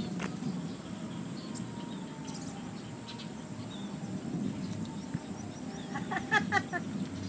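A bird chirping in a quick run of short notes about six seconds in, over a steady low background rumble.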